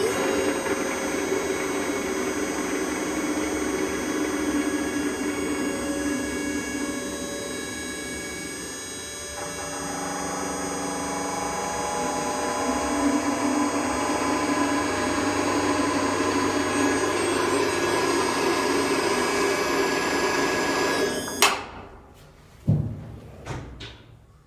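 Powered machine running with a noisy bearing at the blade flange, the abnormal bearing noise the owner is showing: a steady mechanical noise with several constant whining tones that starts abruptly, shifts in tone about nine seconds in, and cuts off after about twenty-one seconds, followed by two short knocks.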